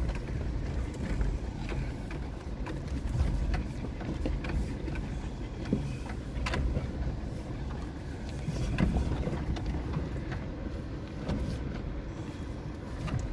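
Suzuki Jimny crawling downhill over a loose, rocky 4WD track, heard from inside the cabin: a steady low engine-and-drivetrain rumble with scattered knocks and crunches as the tyres roll over rocks.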